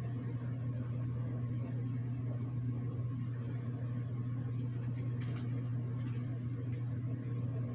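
Steady low machine hum at an even level, with one faint tick about five seconds in.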